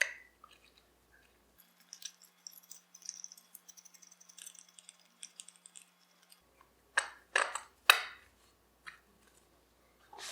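Small metal parts and hand tools being handled during gun-part assembly: light clicks and clinks, then a few sharper knocks about seven to eight seconds in.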